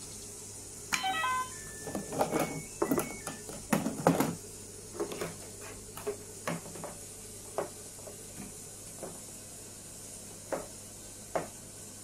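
Little Tikes toy washing machine: a short run of electronic beep tones about a second in, then hard plastic clicks and knocks as its porthole door is opened and clothes are pulled out. The knocks are loudest and thickest early on, then thin out into a few scattered taps.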